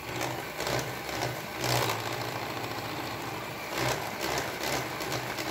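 Electric hand mixer running steadily, its wire beaters whisking runny cake batter in a glass bowl.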